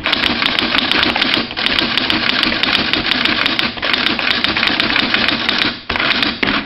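Quen-Data Executive 80 electronic typewriter printing, its print mechanism striking characters in a rapid, continuous clatter, with a brief break near the end.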